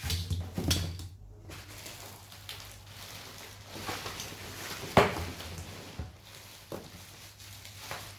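Handling noise from unpacked vacuum cleaner parts: plastic rustling and light knocks, with one sharp knock about five seconds in.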